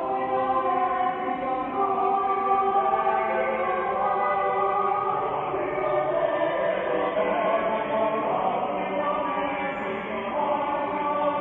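Church choir singing an anthem, several voice parts in held chords that move from note to note.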